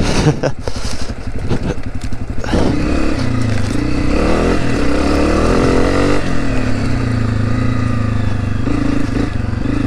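2020 Honda CRF250F's air-cooled single-cylinder four-stroke engine running while the dirt bike is ridden, at low throttle at first, then louder from about two and a half seconds in, its pitch rising and falling with the throttle.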